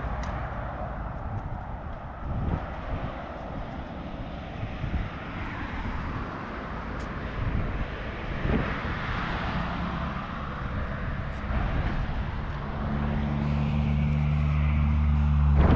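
Road traffic passing on a busy road, a steady noise that swells and fades as vehicles go by. Near the end a heavy engine's low hum comes in and grows louder as it approaches.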